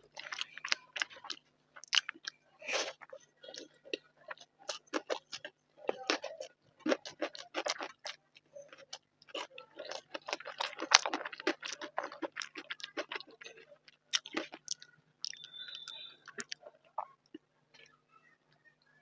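Close-up chewing and mouth sounds of a person eating rice with curry: a dense run of quick wet clicks and smacks that thins out near the end.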